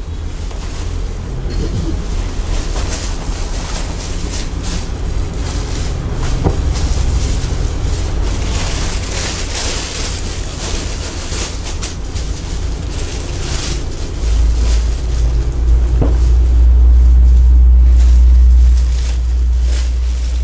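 Clear plastic wrapping rustling and crinkling as a piece of fabric is handled and pulled from its bag, loudest around the middle. Under it runs a loud low rumble that swells and is loudest for several seconds near the end.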